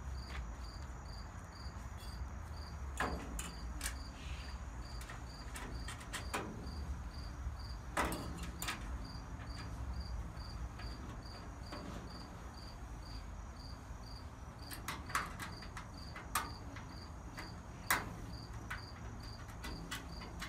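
A cricket chirping steadily about twice a second, with scattered clicks and knocks from a steel bracket and screws being fitted to a steel storage cabinet.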